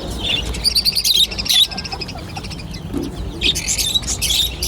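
Small pet-shop birds chirping and tweeting: a string of short, high chirps about a second in and another cluster near the end, over a low background hum.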